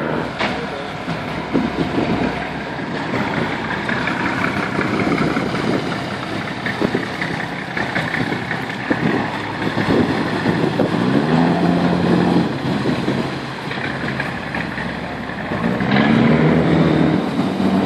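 Engines running steadily, with a deep engine note that climbs in pitch twice, about eleven and sixteen seconds in.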